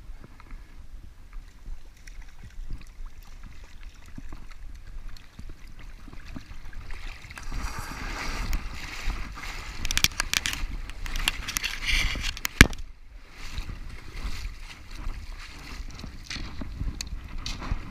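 Wind buffeting the microphone, then water splashing and sloshing at the edge of a stony shore, with one sharp knock past the middle and clicks of shingle near the end.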